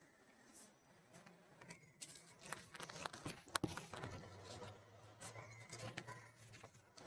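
Palette knife scraping and tapping on an MDF coaster as a thick coat of wall-putty texture paste is spread and worked, a run of soft scrapes and small clicks that is busiest in the middle few seconds, with one sharper click. A faint low hum sits under the second half.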